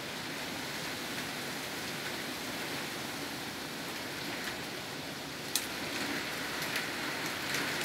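Heavy downpour of rain falling steadily in a storm, an even hiss with a few sharp taps in the second half.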